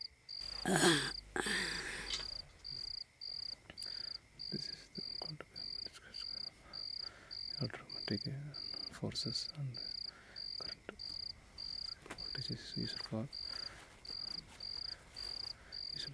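Cricket chirping steadily: a regular train of short, high chirps about two a second.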